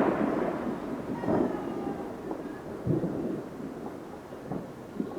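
Neighbourhood fireworks going off: several booms a second or two apart, the first and loudest right at the start, each trailing off in a long rumbling echo like distant thunder.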